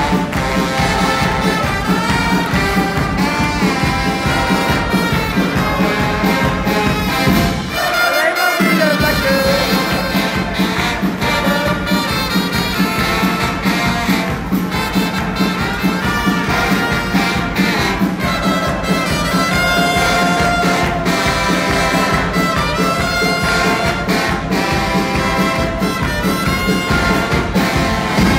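Brass-band music with a steady beat; the bass drops out briefly about eight seconds in.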